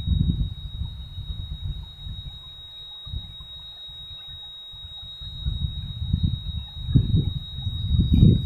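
Wind buffeting the microphone in irregular low gusts, stronger near the end, over a steady high-pitched whine.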